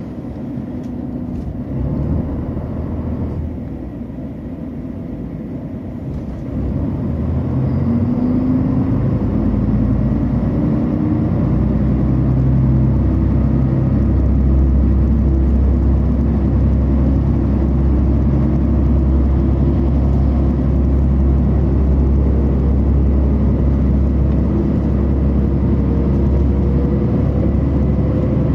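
KTR8000 diesel railcar's engine pulling the train away from a station and accelerating. A low engine drone grows louder about seven seconds in and settles into a heavy steady rumble, with whines rising in pitch as the speed builds.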